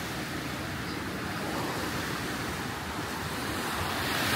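Steady rushing noise of road traffic mixed with surf, getting somewhat louder near the end.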